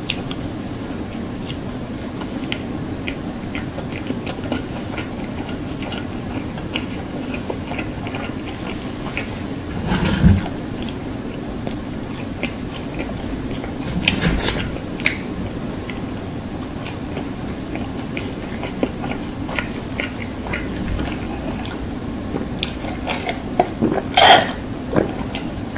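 Close-miked chewing of a burger and fries, with many small wet mouth clicks and a couple of louder bites about 10 and 14 seconds in. Near the end there is a short loud sip through a straw from a drink cup.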